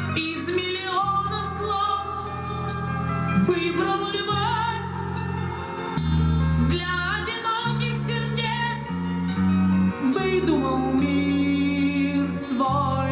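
A rock song with a sung vocal, guitar and a bass line, played through a Yamaha CA-810 stereo amplifier and Klipsch Chorus II loudspeakers and picked up by a microphone in the room.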